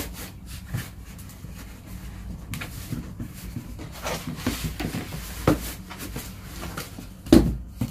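A cotton T-shirt rustling and a cardboard box creaking and bumping on a tabletop as the shirt is tugged and smoothed down over the box. There are irregular soft knocks throughout, and a louder thump near the end.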